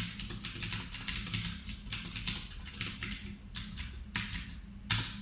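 Computer keyboard keys being pressed in a steady, slightly irregular run of sharp clicks, about three a second.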